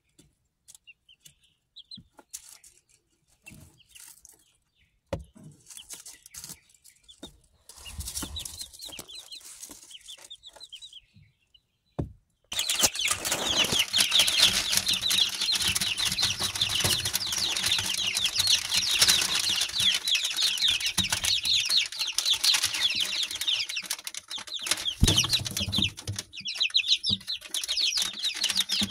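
Chicks peeping: at first only a few soft, scattered peeps. Then, almost halfway through, a loud, dense chorus of many young chickens peeping over one another in short falling chirps.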